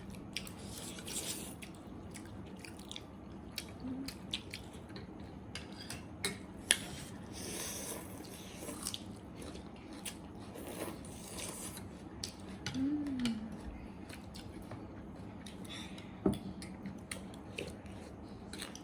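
Close-up chewing and biting of food, with scattered sharp clicks.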